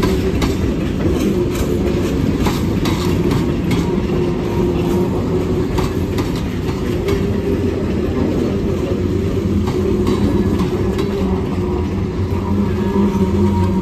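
Canadian National freight cars (tank cars, then hoppers and gondolas) rolling past: a steady rumble of steel wheels on rail with irregular clicks and clanks over the joints. Under it runs a thin steady whine, which gets stronger near the end.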